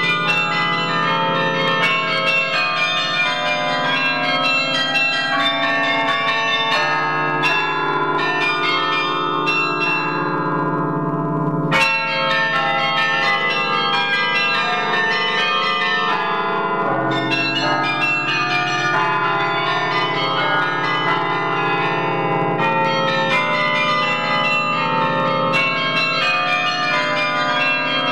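Carillon bells played from the baton keyboard: a quick, continuous stream of struck bell notes over long-ringing low bells, with one sharp, louder strike about twelve seconds in.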